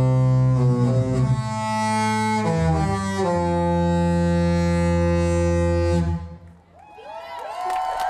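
The Disney Dream cruise ship's horn playing a short Disney melody: a few long notes stepping in pitch, the last held for about three seconds before it stops. Near the end, people cheer and whoop.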